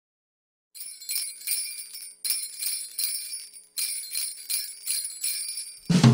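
Sleigh bells shaken in a steady rhythm, about three shakes a second, opening a Christmas pop song. Near the end the full band with bass and drums comes in loudly.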